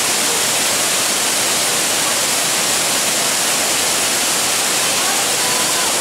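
Steady rushing of a waterfall pouring onto rocks and into a shallow pool. Faint voices come through near the end.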